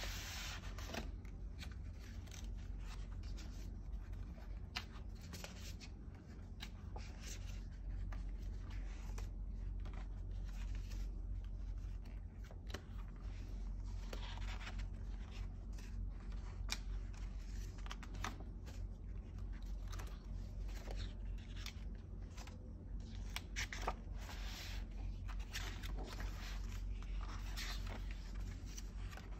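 Pages of a hardcover book being turned by hand: paper rustling and flapping in short swishes and taps, over a steady low hum.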